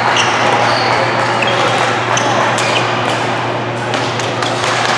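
Badminton play in a large hall: short high squeaks of court shoes on the floor and a few sharp shuttlecock hits off racket strings. Under them runs a steady hum and the din of the hall.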